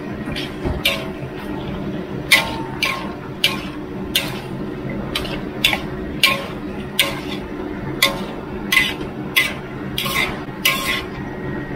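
Metal spatula scraping and clanging against a wok about twice a second, stir-frying a large batch of food, over a steady low hum.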